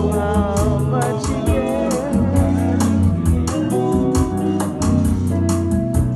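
Live gospel band music: a hollow-body electric guitar playing melody over bass and a steady drum beat.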